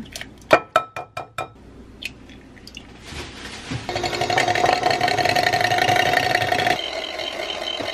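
A quick run of sharp taps as eggs are cracked on a glass mixing bowl, then a KitchenAid electric hand mixer starts about three seconds in and runs steadily, its beaters whisking the eggs in the bowl; its tone changes about seven seconds in.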